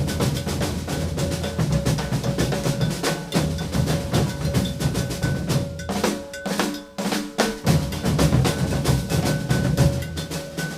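A maracatu percussion group drumming a rhythm, with deep alfaia bass drums, snare drums and a ringing bell. The bass drums drop out about six seconds in while the lighter strokes carry on, then come back in about a second and a half later.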